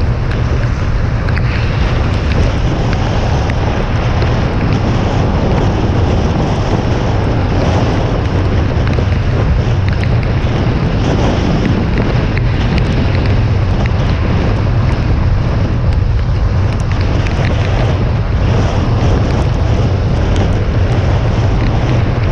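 Steady rush of wind buffeting a hood-mounted action camera on a car driving at highway speed, mixed with the hiss of tyres on rain-soaked pavement. It is a loud, even noise with a deep rumble underneath.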